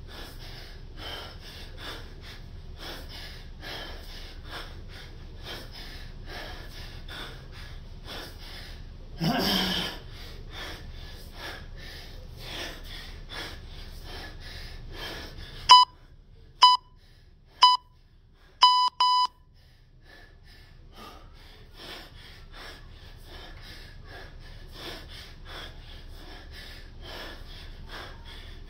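Hard, rhythmic breathing of a man doing repeated 24 kg kettlebell snatches, with one louder rush of sound about nine seconds in. About halfway through, an electronic workout timer beeps five times: three beeps about a second apart, then two quick ones.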